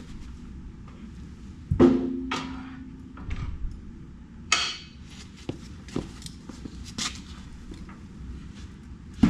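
Metal clanks and knocks from work on a tractor's rear wheel. One sharp clang about two seconds in rings briefly, then come a scrape and a few lighter knocks, and another clang near the end.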